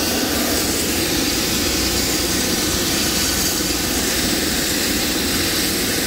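Medical helicopter running steadily on the ground: a constant rush of turbine and rotor noise with a steady high whine.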